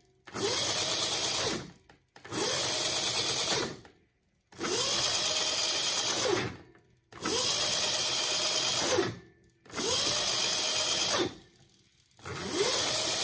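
Electric drive motors of an eClimax class A locomotive truck spinning the wheels in six short runs: each time a whine rises, holds for a second or two, then falls quickly as the Sabertooth 2x60 controller brings the motors to a stop with regenerative braking.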